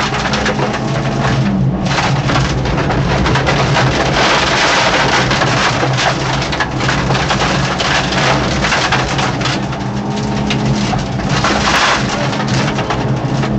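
Inside the cabin of a Peugeot 205 1.9 rally car at speed: the four-cylinder engine running hard under a dense, loud crackle of road and tyre noise from beneath the car, the engine note holding fairly steady with a brief easing about ten seconds in.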